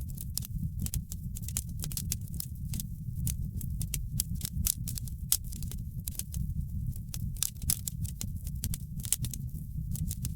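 Wood fire in a fireplace crackling, with many sharp, irregular pops and snaps over a steady low rumble of the flames.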